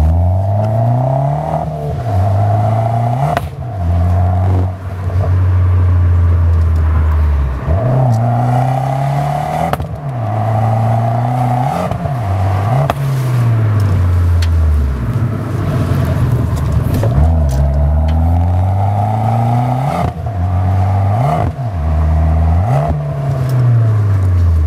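Fiat 500 Abarth's 1.4-litre turbocharged four-cylinder engine through a Skytune aftermarket exhaust, heard from inside the car: the engine pitch climbs under acceleration and drops sharply at each gear change, over and over, with some slower falls as the driver lifts off.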